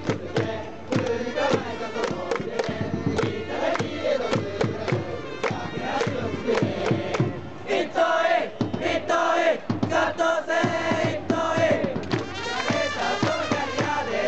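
Baseball cheering-section crowd chanting a player's cheer song in unison over rapid rhythmic beats, about three or four a second. About eight seconds in, the chant gives way to a held, sung melody.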